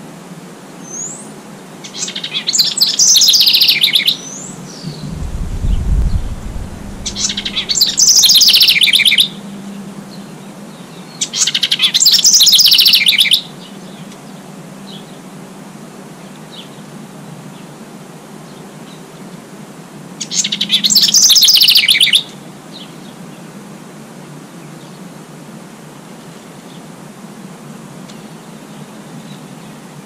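A small songbird singing loud, fast-trilled songs of about two seconds each, four times, a few seconds apart. A brief low rumble comes between the first two songs.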